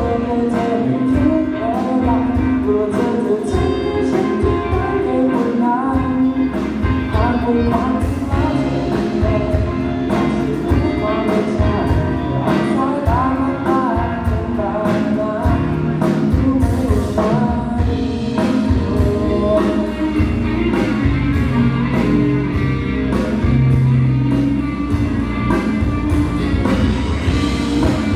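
A band-backed pop song with a singer, guitar and a steady beat, played loudly through a PA during a sound check.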